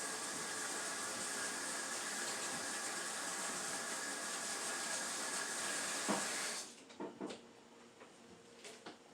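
A steady hiss that cuts off suddenly about seven seconds in, followed by a few light knocks.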